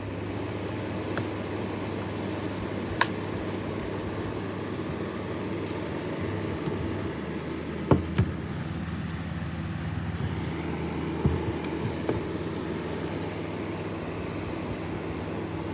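Portable flat fan heater's fan running, a steady motor hum with rushing air, broken by a few sharp clicks.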